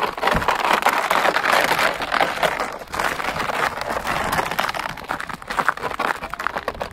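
A sled sliding over snow: a continuous crackling, hissing scrape that dips briefly twice.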